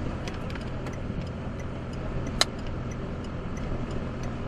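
Steady low hum of an idling vehicle engine with a background rush of wind, faint regular ticking, and one sharp click about two and a half seconds in.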